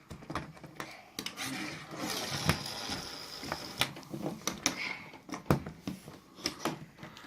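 Small plastic toys being handled: scattered sharp clicks and knocks over a soft rustling.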